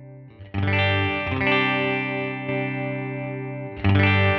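Clean electric guitar chords played through a Line 6 HX Stomp (Princess amp model with a 12-inch Deluxe cab), with its Deluxe Comp block switched off. A chord is strummed about half a second in and left to ring, then struck again near the end.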